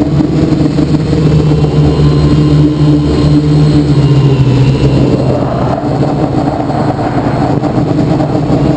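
Quadcopter's electric motors and propellers, heard from the camera on board, humming steadily in flight. The pitch dips slightly about halfway through, and rushing wind noise grows in the second half as it flies fast.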